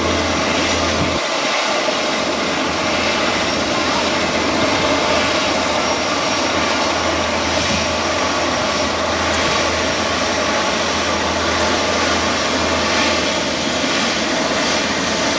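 Jet airliner passing close by, its engines giving a steady, loud rush of noise.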